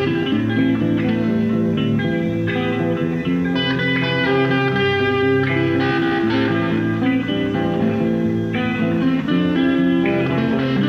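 Electric guitar playing sustained, overlapping notes and chords, with a new note or chord sounding every second or so.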